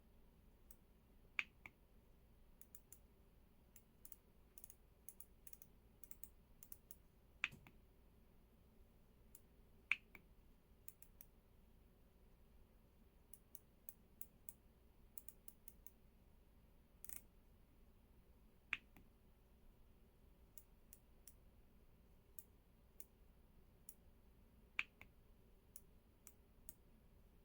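Keys being pressed on an EPOMAKER x LEOBOG K81 Pro mechanical keyboard: faint, irregular key clicks, with a handful of sharper, louder key presses spread through.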